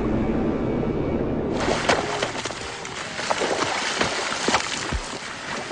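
Low rumble that cuts off abruptly about one and a half seconds in, giving way to water splashing and sloshing with many sharp clicks.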